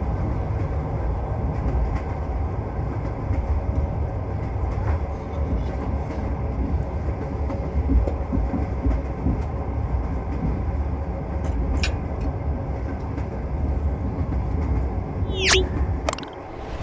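Train wheels rumbling steadily along the rails as the train runs. Near the end a short, high tone slides down in pitch, and then the rumble stops suddenly.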